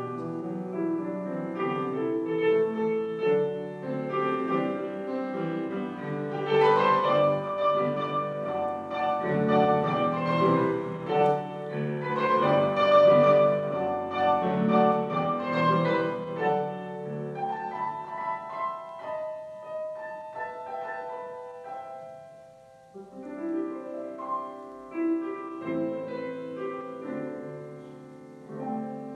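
Grand piano playing chords and melody, easing into a brief lull about three-quarters of the way through before the playing picks up again.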